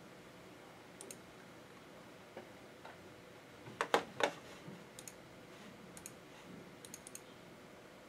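Computer mouse clicking: sparse single and double clicks, with three louder taps close together about four seconds in.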